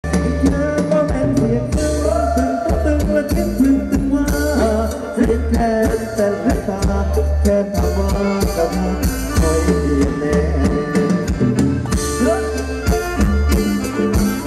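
Thai ramwong dance music from a live band: a steady, heavy drum and bass beat under held melody notes.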